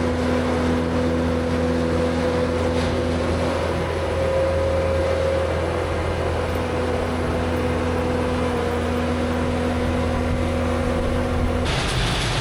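An engine running steadily at constant speed, with an even hum and no revving; the sound changes abruptly near the end.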